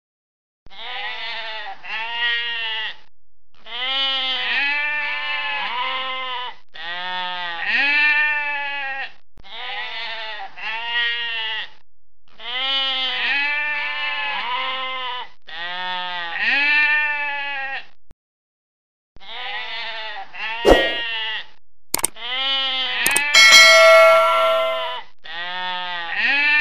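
Sheep and lambs bleating over and over: runs of short, wavering, overlapping bleats broken by brief pauses. About two thirds of the way in come a few sharp clicks and then a ringing bell-like ding, a subscribe-button sound effect.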